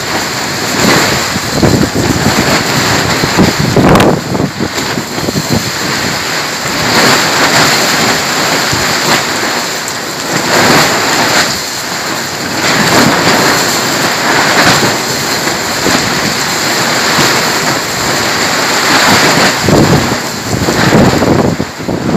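Heavy rain in a gusting windstorm, the noise of rain and wind swelling and easing every few seconds, with gusts buffeting the microphone. One brief sharp knock about four seconds in.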